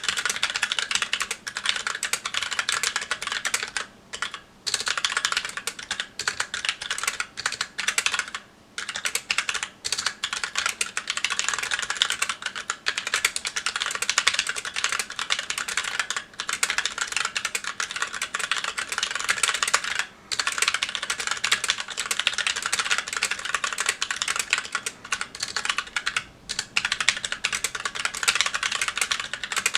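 Fast, continuous typing on a Magicforce 68 mechanical keyboard with stock Gateron Brown tactile switches and GMK keycaps. The stream of key clacks breaks off for a moment a few times.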